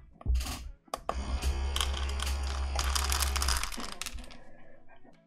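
An automatic pet feeder's dispensing motor runs for about three seconds, a low hum with dry kibble rattling and clicking as it is pushed out of the chute. This is a successful test dispense after the repair.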